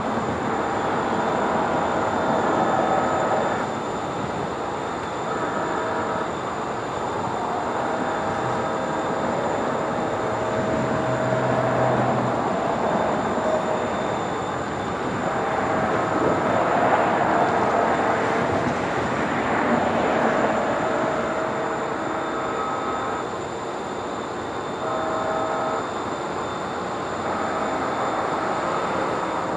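DCTA A-Train commuter train sounding its chord horn in a long series of blasts as it approaches a grade crossing, some held two or three seconds and others about a second, over the steady rumble of the train.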